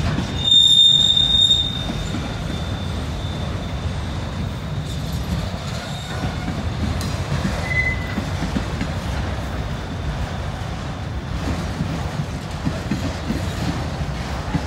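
Freight cars, including auto racks, rolling slowly past on a curve with a steady low rumble of wheels on rail, as the wheel flanges squeal: a loud high squeal about half a second in lasting about a second, fading to a fainter squeal, and another short squeal a little past halfway. The squeal comes from dry, ungreased rails, which the speaker says need a track greaser.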